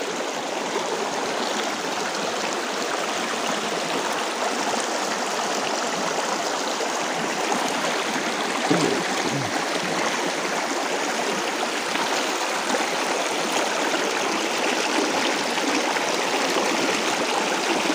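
Shallow forest stream running over rocks and stones, a steady rushing and burbling of water.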